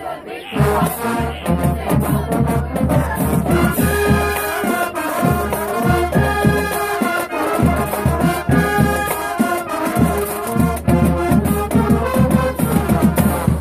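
High school marching band playing a brass stand cheer with horns and a driving drumline.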